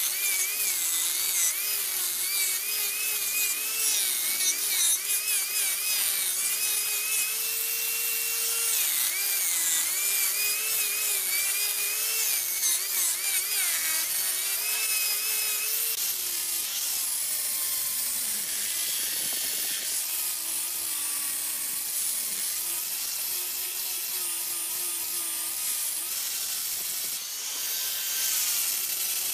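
Handheld angle grinder with an abrasive disc grinding the end of a wooden piece spinning on a lathe: a motor whine that wavers up and down in pitch as the disc bites, over a steady rasp of wood being abraded.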